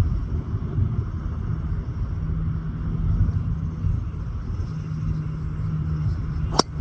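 Strong wind buffeting the microphone as a steady low rumble, with a faint hum for a few seconds in the middle. Near the end comes a single sharp crack of a golf club striking the ball, a shot then called a skied 'tempura'.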